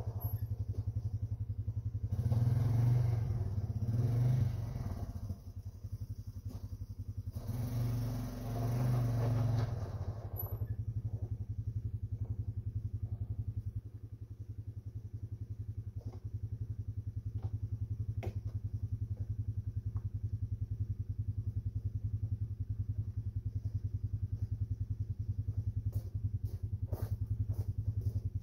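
A vehicle engine running steadily with fast, even firing pulses. It is revved or put under load twice in the first ten seconds, then settles to a steady idle with a few light clicks.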